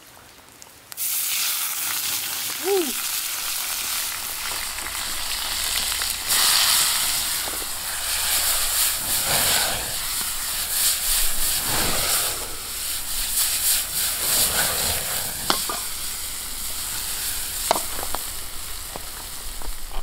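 Fried, ice-chilled noodles dropped into hot oil in a steel pan over a campfire: a sudden loud sizzle about a second in, then steady frying as the pan is worked, with a few sharp clicks near the end.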